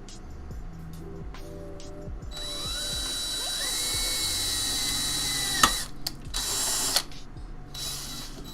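Cordless drill motor winding up with a rising whine and running steadily for about three seconds, cutting off with a sharp click, then a second shorter burst.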